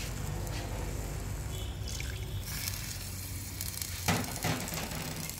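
Pot of pork curry simmering on a gas stove, a soft bubbling over a low steady rumble, with two sharp knocks about four seconds in.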